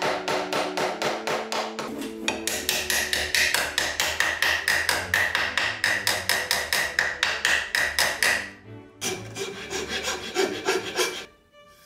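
A small brass hammer tapping rapidly at the corner of an oak drawer, about five light blows a second, with a ringing note joining in from about two and a half seconds in. From about nine seconds in, a metal file rasps along the drawer's edge.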